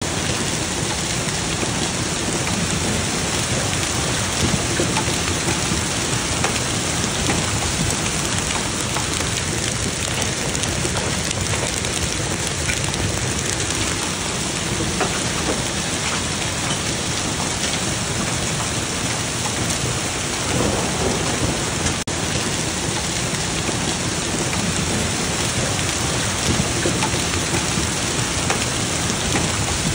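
Large hailstones, some about two inches across, pelting a lawn and yard in a severe thunderstorm: a steady, dense patter of countless impacts over a constant hiss.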